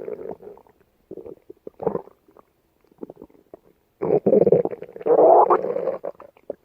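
Stomach growling and gurgling in irregular bursts: a few short rumbles, then a long, loud gurgling growl about four seconds in.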